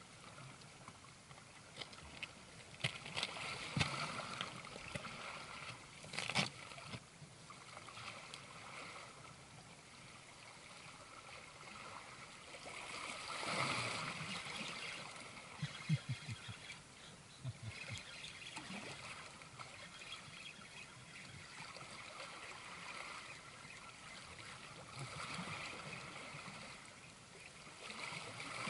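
Sea water lapping and trickling against the shoreline rocks, swelling for a moment about halfway through, with a few sharp clicks and knocks, the strongest about six seconds in.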